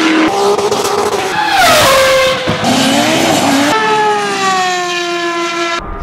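Racing car engines in a string of short edited clips, each cut off abruptly. The engine pitch drops and climbs with lifts and gear changes.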